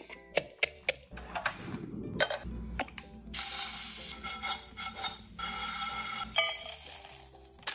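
Dry instant ramen noodles clicking and crunching as they are handled. Then, about three seconds in, a steady sizzle as the crushed noodles are poured into hot oil in a frying pan and tossed; the sizzle drops away near the end.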